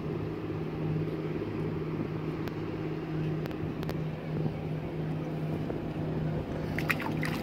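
Steady low engine drone with a constant pitch, with a few light clicks near the end.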